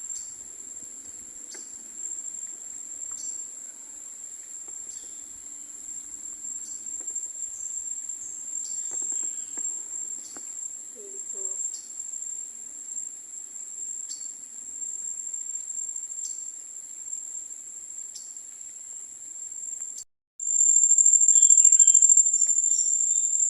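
Steady, high-pitched drone of a tropical insect chorus in the mangrove. It cuts out for a moment about twenty seconds in and comes back louder.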